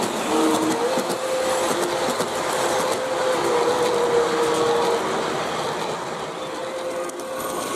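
G-scale model train cars rolling past on outdoor track: a steady rolling clatter with fine clicks from the wheels over the rail, and a steady hum that shifts in pitch a couple of times.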